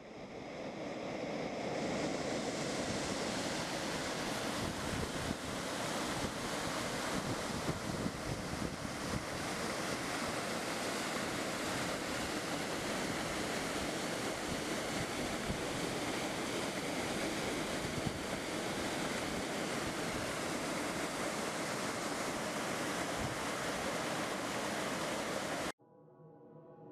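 Steady rush of falling water from a waterfall and stream, fading in over the first two seconds and cutting off abruptly near the end.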